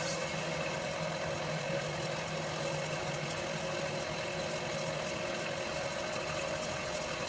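Homemade milling machine running steadily under load, its cutter milling a heavy welded steel lathe bed: an even machine hum with a constant tone.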